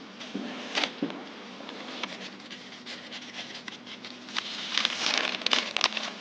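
Paper rustling and light clicks as sheets and small objects are handled and gathered up, busiest about four to six seconds in.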